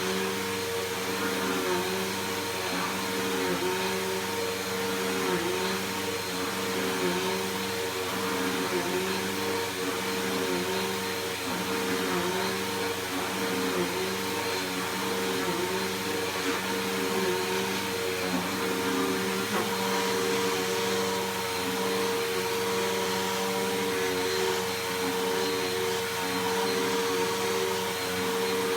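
Bissell PowerForce Helix Turbo upright vacuum cleaner running steadily, with a slight dip in its motor tone repeating about every second and a half.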